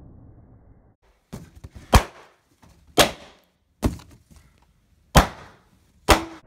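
Six sharp, short bangs from air-filled party balloons, roughly a second apart.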